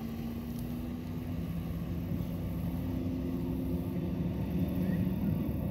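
Motorboat engine running steadily with a low hum, growing a little louder.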